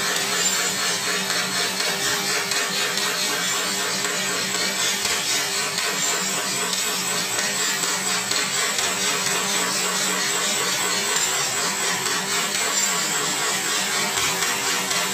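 Jackhammers breaking concrete, a steady, continuous rapid hammering with no pauses.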